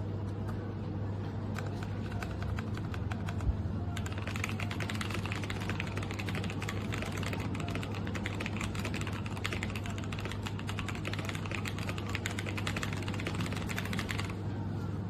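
Typing on a mechanical keyboard fitted with Akko POM Pink linear switches: a few scattered keystrokes, then fast, dense typing from about four seconds in until shortly before the end, over a steady low hum.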